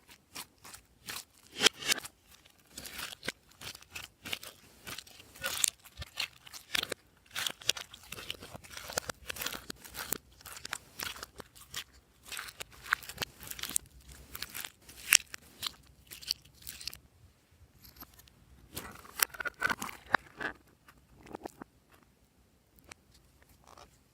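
Glossy slime being squished and mixed by hand: a dense run of sticky clicks and crackles. It pauses about two-thirds of the way through, comes back briefly, then stops near the end.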